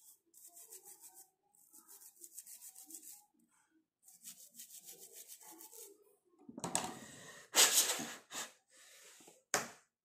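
A small brush scrubbing the thinner-wet connector on a copier's control-panel LCD board, in three short spells of fast back-and-forth strokes, clearing the rust- and carbon-like deposits that make the display cut out or go blank. In the last few seconds come a few loud, short, breathy bursts.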